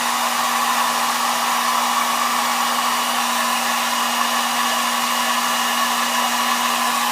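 Hot-air blower running steadily, a constant rushing blow with a low hum, heating the phone to soften the adhesive under the glass.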